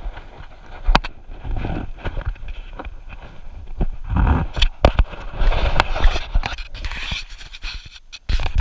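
A dog panting close to the microphone of a camera strapped to its chest, with rubbing noise and scattered sharp knocks on the camera as it is jostled and handled.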